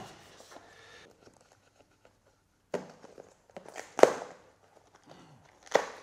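A cardboard keyboard box being handled on a wooden table while its tape is cut with a kitchen knife. After a quiet start there are three short knocks and scrapes, the loudest about four seconds in, with small ticks between.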